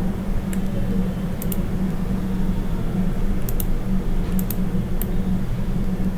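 Sharp clicks of a computer mouse and keyboard being worked, about eight in all, several in quick pairs, over a steady low hum.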